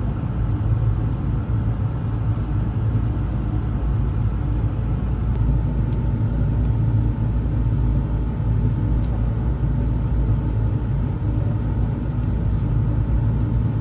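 A steady, unbroken low mechanical rumble with a constant hum, with a few faint clicks over it.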